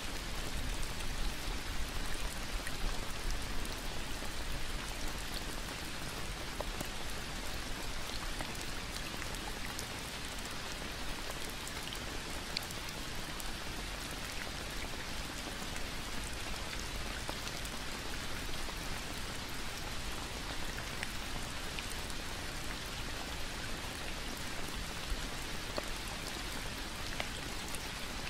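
Steady rain falling, an even hiss with scattered individual drop hits.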